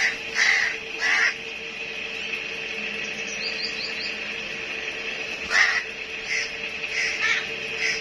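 House crows cawing: three caws in quick succession at the start, a pause, then four more from about five and a half seconds in. A steady high-pitched hum runs underneath.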